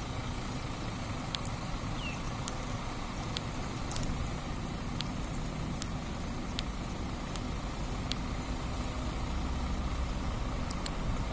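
Diesel engine of a large coach bus running at low speed as it manoeuvres to park: a steady low rumble that grows a little louder near the end.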